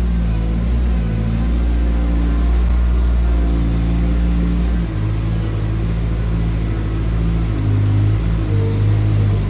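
Engine of a farm machine bringing in a round hay bale, running steadily, with a shift in pitch about halfway through.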